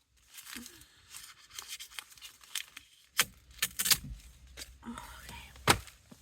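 Hands and a knife working thick electrical service cable: a string of irregular scrapes, cuts and clicks as the insulation is cut and the stranded conductor handled, with one sharp knock near the end.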